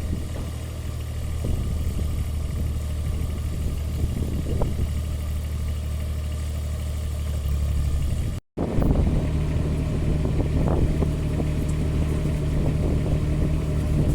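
Kubota mini excavator's diesel engine running steadily under hydraulic load, as the track-extension function widens the undercarriage. The sound breaks off sharply about eight seconds in and comes back with a higher note added to the hum.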